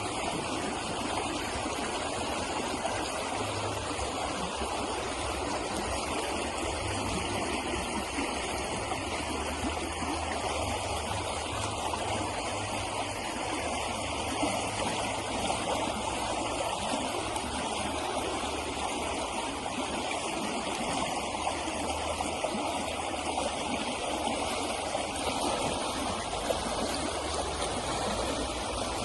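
River water flowing over rocks: a steady rushing and burbling with no let-up.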